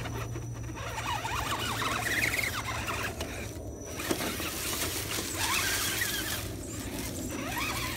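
Electric motor and gearbox of an RC rock crawler whining, rising and falling in pitch in spurts as the truck climbs over rocks. There is a sharp click about four seconds in.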